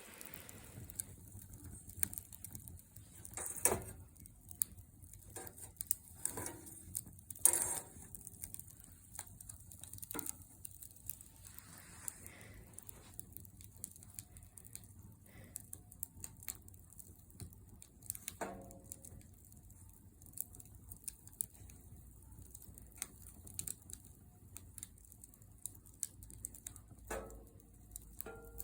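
Wood fire burning in a fire pit stand, crackling with irregular snaps and pops, a couple of louder pops in the first eight seconds.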